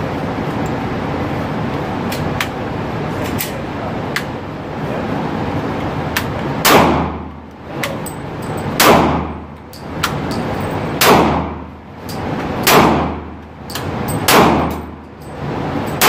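Gunshots in an indoor shooting range: five shots about two seconds apart, each ringing off the walls, and a sixth right at the end. A few light clicks of gun handling come before them.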